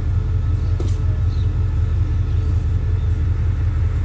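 Diesel engine of a stationary passenger train running at idle: a steady low rumble with an even pulse. A light knock sounds about a second in.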